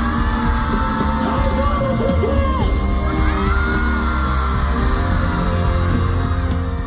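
Band music playing out the end of a song, with an audience yelling and whooping over it.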